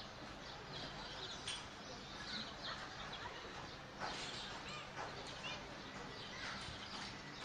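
Small birds chirping now and then over a steady background hum of outdoor ambience.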